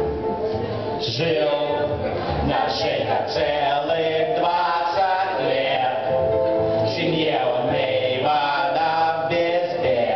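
A mixed group of men and women singing a song together, many voices at once.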